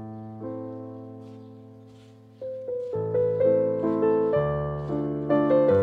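Background piano music: slow, sustained notes fading away, then a livelier run of louder notes from about halfway through.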